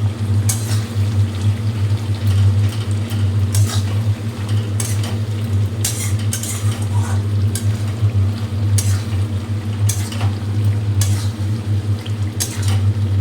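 Drumstick pieces and spices frying in a kadai, stirred with a spatula that scrapes and clinks against the pan at irregular intervals, over a steady low hum.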